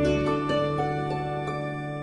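Soft instrumental background music: gentle sustained notes over a held low bass note, slowly fading.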